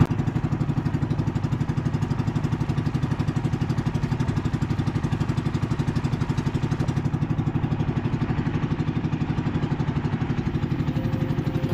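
Small engine of a wooden outrigger fishing boat running steadily at cruising speed, with a rapid, even pulse.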